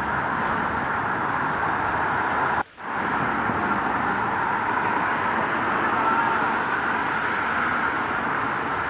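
Steady rain with road traffic on a wet street, one continuous hiss of rain and tyres. The sound cuts out abruptly for a split second about two and a half seconds in, then resumes.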